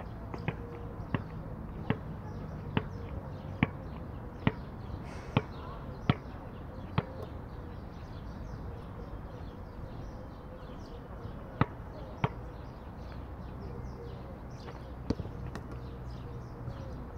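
A basketball being dribbled: steady bounces a little under one a second for about seven seconds, then a pause and a few scattered bounces.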